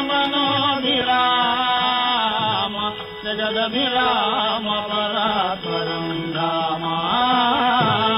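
A man singing an ornamented Carnatic-style melody in Tamil harikatha over a steady drone, from an early shellac disc transfer, with a narrow, muffled sound and a few faint surface clicks.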